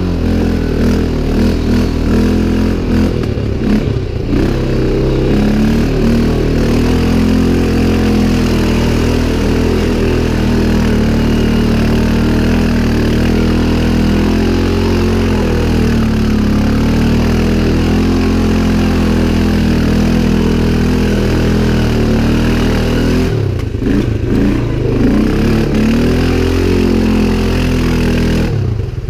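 CFMOTO 500 ATV's single-cylinder engine running hard, held at fairly steady revs for most of the time. The revs swing up and down in the first few seconds and again near the end.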